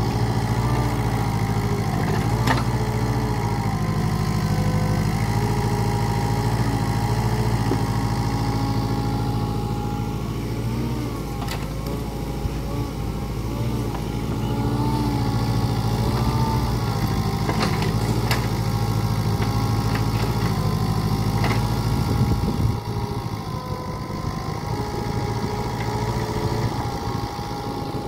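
Mini excavator's diesel engine running, with a hydraulic whine that rises and falls in pitch as the boom and bucket move, and a few short knocks of the bucket working the dirt. About 23 seconds in the low engine note eases off.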